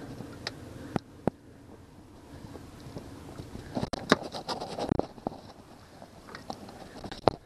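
Scattered clicks, knocks and rubbing of handling on a boat's stern, with a sharp knock about four seconds in and another near the end. No outboard engine is heard running.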